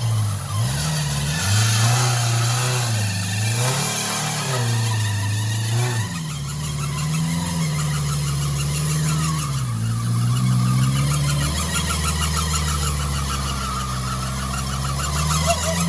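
Off-road 4x4's engine revving under load, its pitch rising and falling several times in the first six seconds, then held steadier with small swings.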